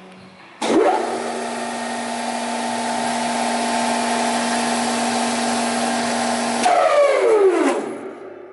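Spindle moulder (wood shaper) switched on: its motor and spindle come up to speed almost at once and run steadily without cutting, a steady hum and whine over a broad whoosh. Near the end it is switched off and winds down quickly, the whine falling in pitch.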